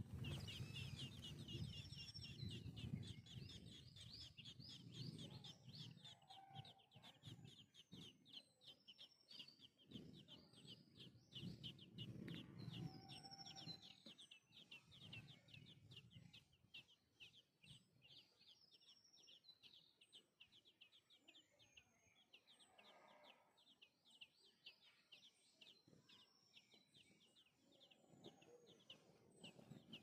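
Faint, rapid high-pitched chirping of nestlings begging, strongest in the first half, weaker in the middle and picking up again near the end, with scattered short calls of other birds and a low rumble in the first half.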